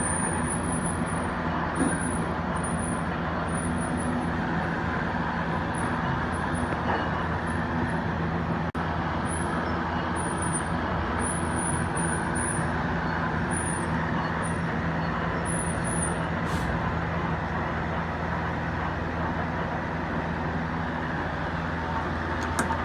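Lathe running steadily under power, a continuous low machine hum with a broad grinding haze over it, as a part is bored out.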